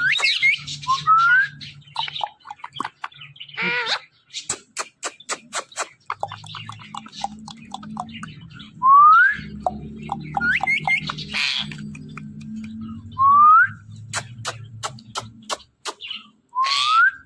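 Ring-necked parakeets calling: a short rising whistle repeated four times, mixed with runs of rapid clicking and scratchy chatter.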